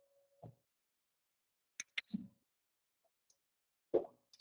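Near silence broken by a few short, faint clicks, two of them close together about two seconds in.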